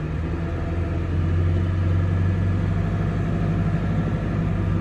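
Ford diesel pickup's engine heard from inside the cab, running steadily in four-wheel-drive low as the truck pushes through tall weeds; its low drone grows a little louder about a second in.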